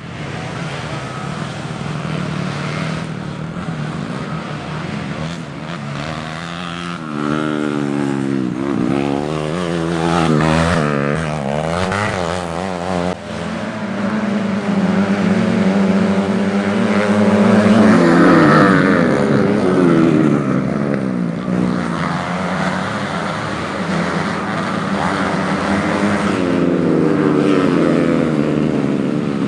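Racing engines of modified underbone motorcycles on a grasstrack, revving hard with the pitch climbing and dropping repeatedly as bikes accelerate, shift and pass, several engines heard at once.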